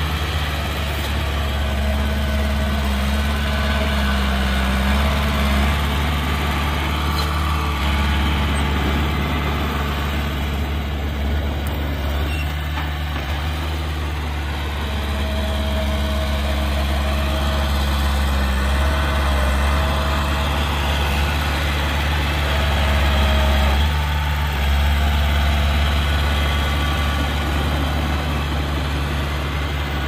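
Heavy diesel engine of earthmoving machinery running steadily with a deep drone, swelling slightly in loudness a few times.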